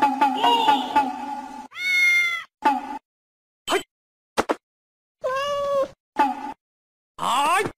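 Domestic cat meowing about five times, short calls under a second each that bend in pitch, with a couple of brief clicks between them.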